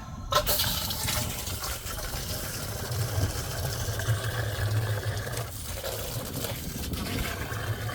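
Water pouring and splashing, starting suddenly just after the start and running on steadily.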